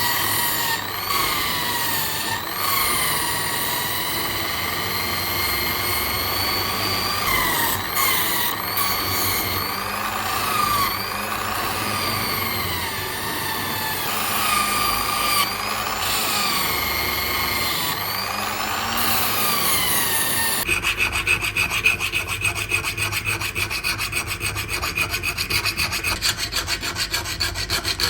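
Abrasive shop work on the knife: a whine that rises and falls in pitch for about twenty seconds, then a fast, even rubbing rhythm like filing or sanding strokes.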